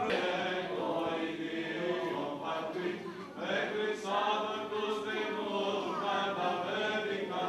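A group of voices chanting an Orthodox Easter hymn, with long held sung notes.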